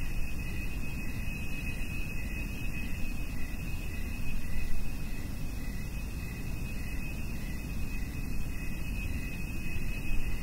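A steady high tone with a second, slightly lower tone pulsing about two to three times a second, over a steady low rumble.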